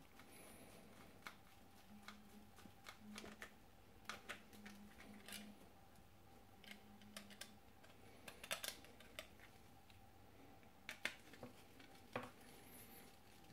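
Small screwdriver driving screws through a circuit board into standoffs: faint, scattered small clicks and scrapes, with a few louder clicks in the later part.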